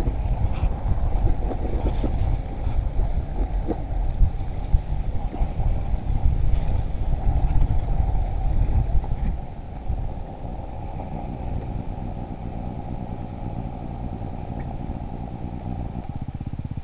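Dirt bike engine running while riding over a rocky trail, with scattered knocks from the rough ground. About nine seconds in it drops to a quieter, steadier running, and near the end it settles into an even, fast putter like an idle.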